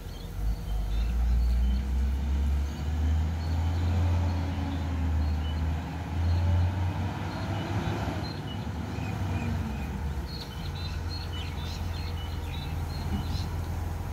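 Low, heavy rumble of a garbage truck's engine out of sight, loudest in the first half and steadier after. Small birds chirp over it in the last few seconds.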